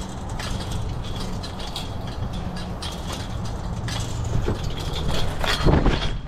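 Crunching footsteps and rustling while walking, with short high beeps from an FPV drone's lost-model buzzer sounding on and off, which signal where the crashed drone lies.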